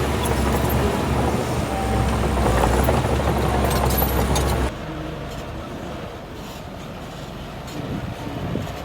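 Heavy diesel engine of earthmoving machinery running loudly under load, with a few sharp metallic clicks and clanks, then an abrupt drop to a quieter engine sound a little past halfway.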